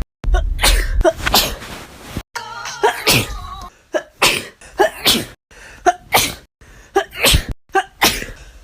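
A woman in a sneezing fit, sneezing over and over in quick succession. The sharp sneezes come about one to two a second with short gaps between them.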